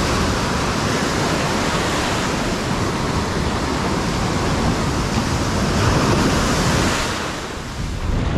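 Ocean surf breaking and washing up the beach in foam, a steady rushing that eases briefly about seven seconds in.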